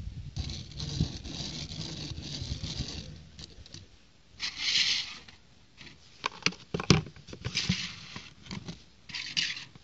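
Plastic wheels of a small brick-built toy race car rolling on a wooden tabletop, then a cardboard box sliding across the wood with a short scraping hiss. Several clicks and one sharp knock about seven seconds in, and another brief scrape near the end.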